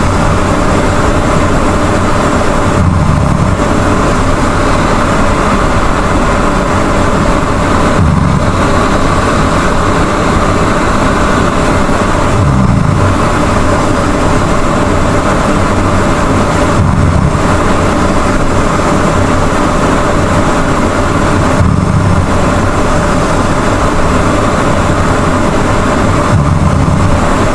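Loud snoring: a low, rumbling snore on each breath, about every four and a half to five seconds, six times, over a steady hiss.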